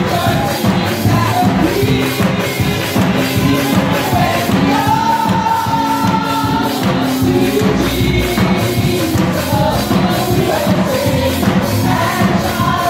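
Voices singing a hymn over music with a steady percussive beat, in a church room.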